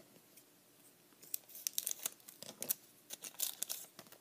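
A trading card pack wrapper crinkling and tearing open by hand. After about a second of quiet, it gives a run of sharp crackles that lasts nearly three seconds.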